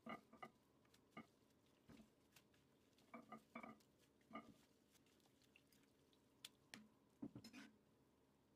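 A metal slotted spoon pressing and turning cherry leaves in a granite-coated pot of hot water while they are blanched: faint, scattered knocks of the spoon on the pot and small splashes, in three short clusters.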